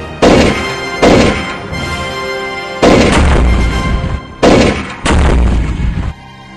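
Gunshot sound effects over dramatic soundtrack music: about five heavy blasts, each trailing off in a low rumble, and the music drops lower near the end.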